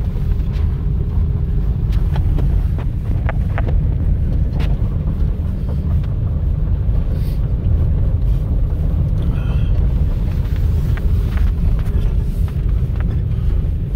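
Vehicle driving along a road: a steady low rumble of engine and tyres, with a few light clicks and ticks scattered through it.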